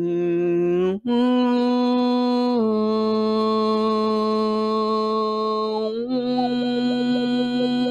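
A voice toning long, held chant-like notes, each lasting several seconds, with a brief break about a second in. The pitch steps down a little about two and a half seconds in and back up about six seconds in.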